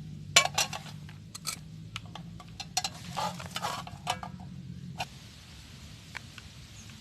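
Spoon and metal camp cookware clinking and clicking while instant sachet coffee is made, over a low steady hum that stops about five seconds in.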